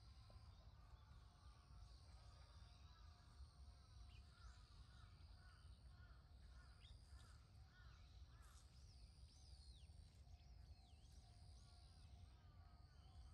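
Near silence: faint wild birds calling, with a quick series of short repeated notes a few seconds in and again near the end, over a faint steady high hum and low rumble.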